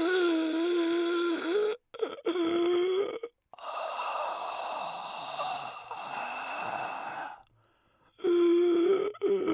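A person mimicking an old man's snoring and groaning. Two drawn-out groans come first, then a long breathy exhale of about four seconds, and another groan near the end. Each sound cuts off abruptly.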